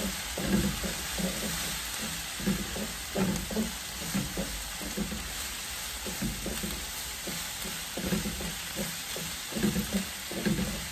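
Diced tomatoes, peppers and onion sizzling in a wok as they sauté, with a steady hiss. A wooden spatula stirs and scrapes through them in repeated irregular strokes.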